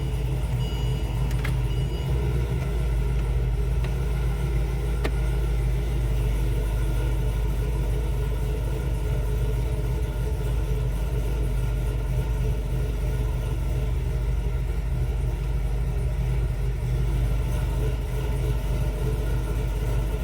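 A 2011 Chevrolet Caprice PPV engine idling steadily. Two short high beeps come in the first two seconds, and a few faint clicks follow in the next few seconds.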